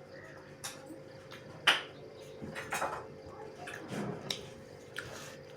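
Eating sounds at a meal of pork and rice: a handful of short sharp clicks and smacks, the loudest about a second and a half in, over a faint steady hum.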